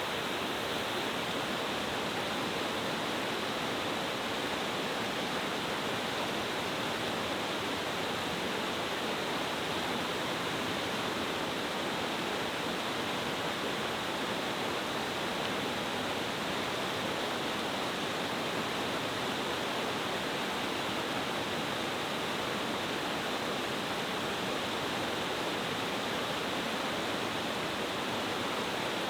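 Steady rush of a mountain-stream cascade waterfall, water falling powerfully over several tiers.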